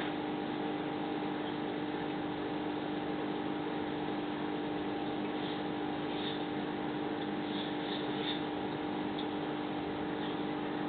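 Aquarium pump motor humming steadily over a constant hiss, with a few faint, short high ticks about halfway through.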